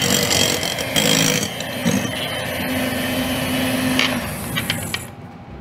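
Electric hand mixer running at speed, its beaters whipping stiff meringue in a glass bowl as cornstarch is beaten in. It cuts off suddenly about five seconds in.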